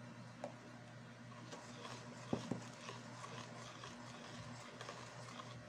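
Wire balloon whisk stirring thin cake batter in a stainless steel bowl: faint, irregular tapping and scraping of the wires against the metal, with one sharper clink about two and a half seconds in.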